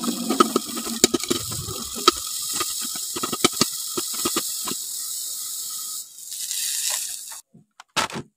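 Food frying in hot oil: a steady high sizzle with scattered sharp pops and crackles, which stops about six seconds in. A shorter burst of sizzle follows, then a couple of separate clicks near the end.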